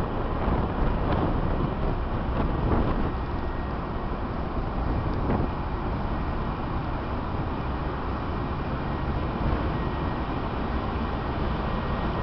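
Steady rumble and rush of wind and sea on the open deck of a ship under way, with a few light knocks in the first few seconds.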